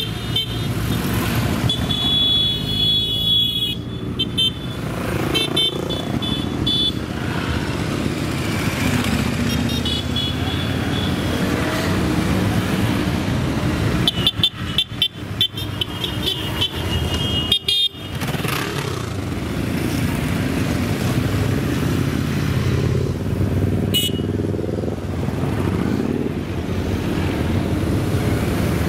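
A procession of motorcycles riding past one after another, their engines running continuously. Horns toot several times, in short high blasts.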